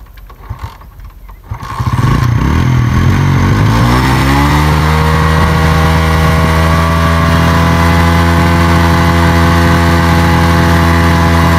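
Small motorcycle engine kick-started: it catches about two seconds in, revs unevenly for a couple of seconds, then settles into a steady fast idle.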